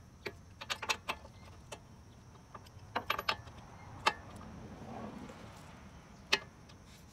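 Brake caliper and pads clicking and clacking as they are pushed and rocked by hand: scattered sharp metal clicks, some in quick clusters, with single louder clicks about four and six seconds in.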